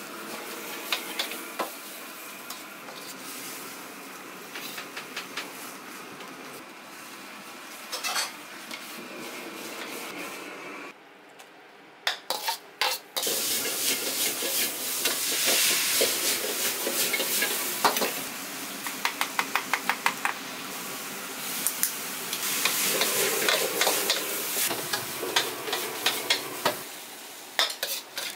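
Food sizzling in a wok while a metal ladle scrapes and clanks against it. About halfway through the sound drops away briefly, then comes back louder, with quick runs of ladle clanks.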